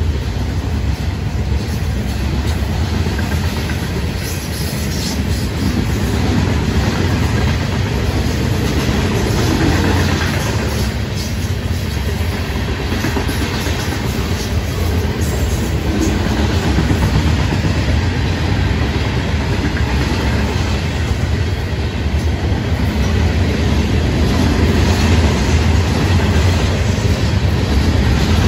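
Freight cars of a Florida East Coast Railway train, open hoppers and covered hoppers loaded with rock and fly ash, rolling past: a steady rumble of steel wheels on the rails, growing slightly louder near the end.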